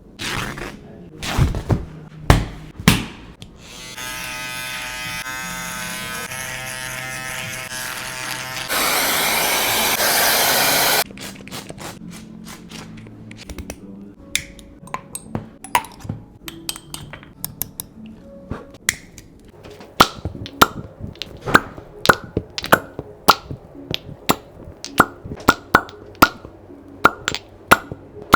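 A few sharp cracks and thumps in the first three seconds, then a steady electric buzz for about five seconds and a loud hiss for about two seconds. A long run of sharp clicks follows, settling into about two a second near the end, as in a back-crack and cupping treatment with cups being pumped onto the skin.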